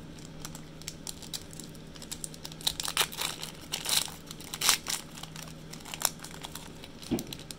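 Foil wrapper of a Pokémon TCG Chilling Reign booster pack crinkling and tearing open as the next pack is opened by hand: an irregular run of sharp crackles, busiest and loudest through the middle.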